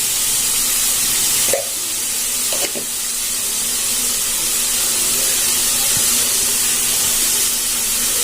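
Chopped onion, tomato, carrot and beans sizzling steadily as they fry in oil in a pan, with two light knocks about one and a half and nearly three seconds in.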